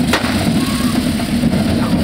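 A Catalan devils' troupe's pyrotechnics and drums: a loud, continuous din of hissing fireworks and drumming, with a sharp crack just after the start.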